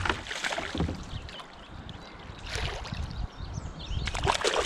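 Water splashing and sloshing as a hooked smallmouth bass thrashes at the surface beside a kayak, with a few sharper splashes near the start and again near the end.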